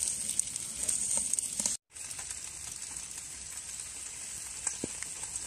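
Steady hiss and sizzle from a large wok of freshly steamed, leaf-wrapped sticky-rice dumplings giving off steam, with a few small clicks. The sound drops out briefly about two seconds in.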